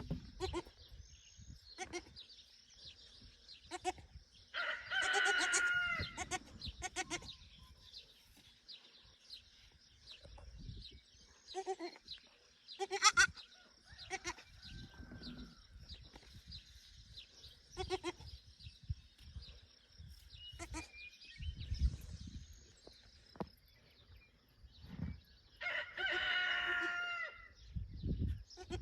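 A rooster crowing twice, each crow about two seconds long, once early and once near the end, over a steady high-pitched background drone and scattered small clicks.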